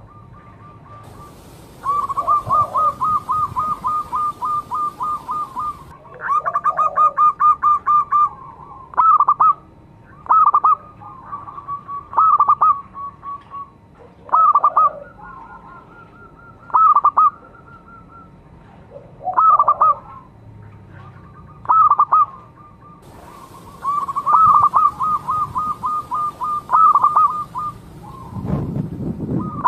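Zebra dove (perkutut) cooing. Long runs of rapid, evenly repeated coo notes alternate with short two- or three-note calls every couple of seconds.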